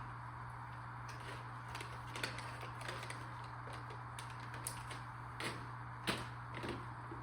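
Steady low hum of an aquarium pump, with scattered light clicks and taps about once a second.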